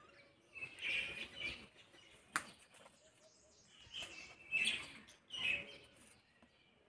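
Small birds chirping in two spells of bursts, about a second in and again from about four to five and a half seconds in, with a single sharp click between them.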